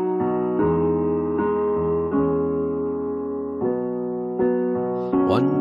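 Piano playing a slow introduction of held chords, changing about every second. A singer comes in near the end.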